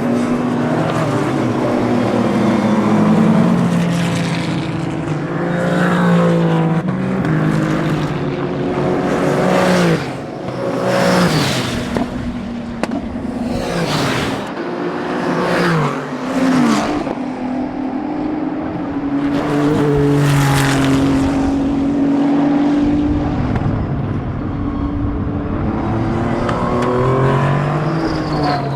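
Race car engines on a circuit, revving hard with the pitch stepping through gear changes. Several cars pass by at speed one after another, the note dropping as each one goes past.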